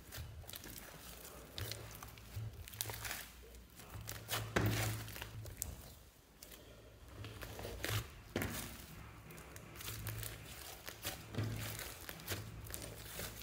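Hands squeezing, folding and stretching a large mass of clay-mixed slime, giving a run of irregular squishes and clicks at uneven intervals, loudest about a third of the way in.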